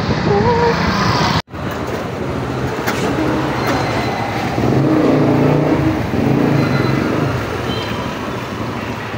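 Street traffic noise, a steady din of vehicles on a busy market street, cut off for an instant about one and a half seconds in.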